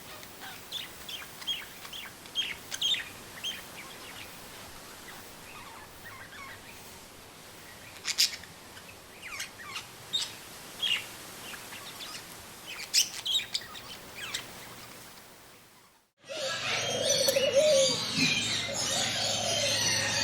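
Songbirds chirping and singing in short scattered calls and trills over a soft steady hiss, the sharpest chirps about eight and thirteen seconds in. Near the end the sound cuts out for a moment, and a louder, busier track follows with dense chirping and a low hum.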